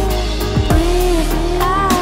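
Background pop song: a sung melody over a steady drum beat, with a drum hit about every second and a bit.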